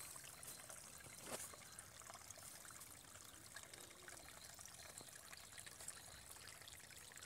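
Faint trickling of water around a candle-heated pop-pop boat running on test, with scattered light ticks and one slightly louder tick about a second in.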